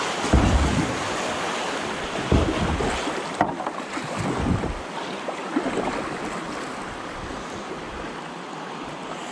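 Shallow river water rushing around a kayak with a few splashing paddle strokes, the sound settling to a quieter steady wash about halfway through as the boat reaches flat water.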